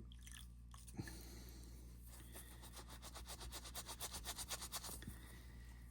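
A soapy cleaning sponge scrubbing a watch's resin strap in quick back-and-forth strokes, several a second, for about three seconds from two seconds in; a single faint click comes about a second in.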